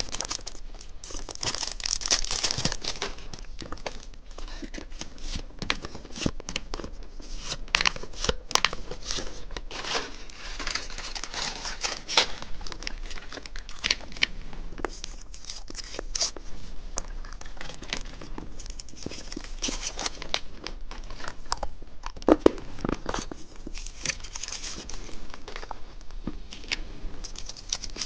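Plastic candy wrapper crinkling and tearing, with many sharp clicks and rustles, as a piece of chewing gum is unwrapped.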